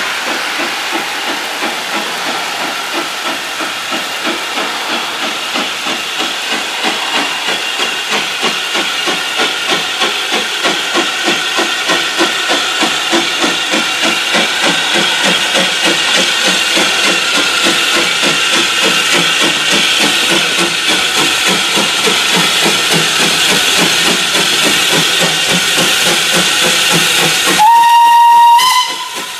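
Steam locomotive approaching under power: its exhaust chuffs in a steady rhythm that grows louder as it nears, with a hiss of steam. Near the end it gives one loud whistle blast of about a second and a half, rising slightly in pitch.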